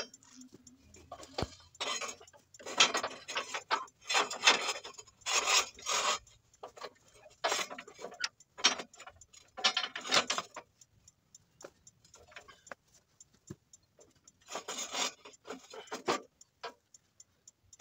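Irregular bursts of scraping, knocking and rattling as a homemade steel lifting frame is handled and fitted to a tractor's three-point hitch, with a faint, regular ticking in the second half.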